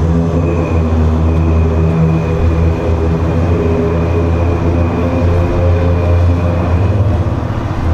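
A loud, steady low droning hum with a stack of overtones and a thin high whine above it, the unexplained strange sound.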